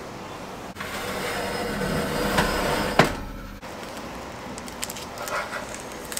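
A metal baking tray being slid into an oven, a scraping rush that ends in a sharp knock about three seconds in. Later, a few light clinks of a metal spatula against the baking tray.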